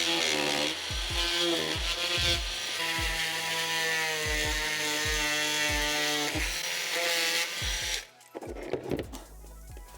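A bladed power tool cutting notches into a car door panel, its pitch sagging and recovering as the blade loads, stopping about eight seconds in. Background music with a steady beat runs underneath.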